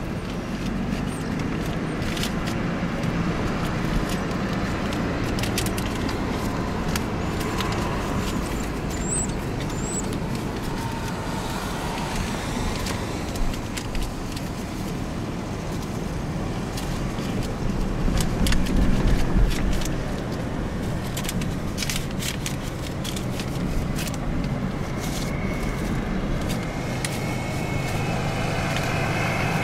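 Car being driven, heard from inside the cabin: a steady engine and road rumble that swells louder about two-thirds of the way through.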